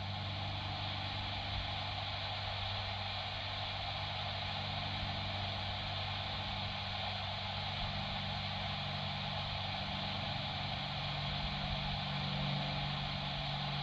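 Steady low hum with an even hiss that does not change, heard in the car with no transmission coming through the CB receiver.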